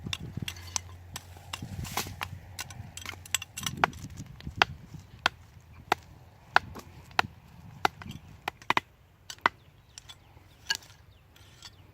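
Wood being chopped with a blade: a run of sharp chopping strikes at an uneven pace, some much louder than others.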